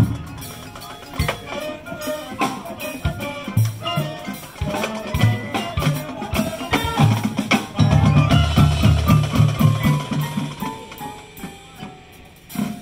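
Marching band playing, led by front-ensemble mallet percussion (marimbas and vibraphones) with drums: quick struck notes, a heavy low section about eight seconds in, then the music thins out near the end.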